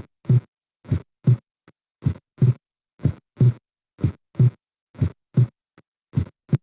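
Recorded heart sounds played on a loop: a steady first-and-second-sound rhythm of about one beat a second. The second heart sound is split into two small sounds close together, the physiological splitting of S2 that widens during inspiration.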